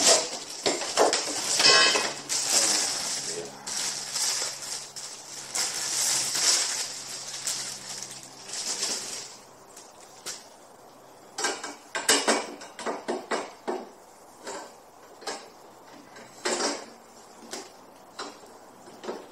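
Rustling for the first half, then a series of sharp metal clicks and clanks as the mower's tubular metal handle parts are handled and knocked together.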